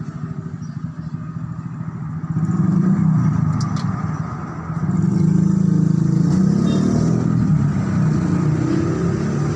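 Diesel truck engine running, its speed and loudness rising about two seconds in, dropping back, then rising again about five seconds in and holding.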